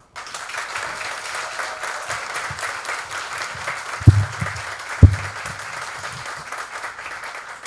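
Audience applauding, the clapping thinning out near the end. Two loud, low thumps come about four and five seconds in.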